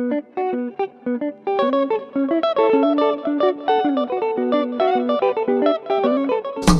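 Intro music: a fast melody of single plucked guitar notes, picked one after another. Just before the end, drums and percussion come in with a fuller sound.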